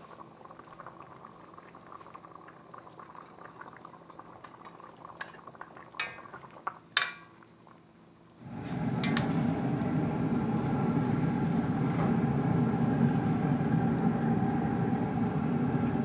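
A pot of stew simmering quietly, with a few sharp clinks of a pot lid and utensils about six and seven seconds in. About eight seconds in it gives way to the much louder, steady sizzle and rush of a hot grill cooking sage grouse breast steaks, handled with tongs.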